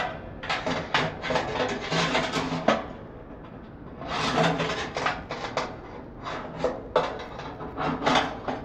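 Homemade wire rack scraping and clattering against the metal inside of a toaster oven as it is slid in and out, in two runs of quick scrapes and knocks with a short lull about three seconds in.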